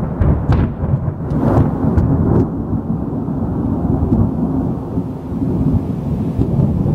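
Close thunder rolling loudly. Sharp crackles in the first two seconds or so give way to a long, steady, deep rumble.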